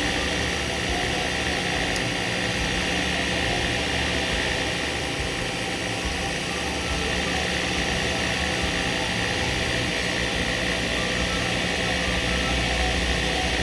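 Small milling machine running steadily, a motor hum under an even hiss, as it cuts the worn radius off a pistol's hammer-release part to restore a sharp edge.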